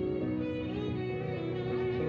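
Background music led by a violin playing long held notes over a steady accompaniment.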